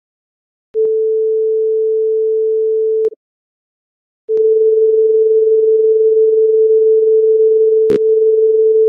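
Computer-generated 440 Hz sine-wave test tone, the kind used as amplifier input for checking RMS output and clipping, played twice. A steady pure tone lasts about two and a half seconds, then stops for about a second, then plays again, with a sharp click near the end.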